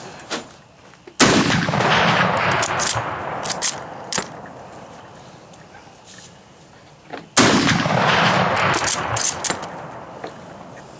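Two rifle shots from a Mosin Nagant in 7.62×54R, about six seconds apart. Each sharp crack is followed by a tail that rolls away over several seconds, with a few lighter clicks in between.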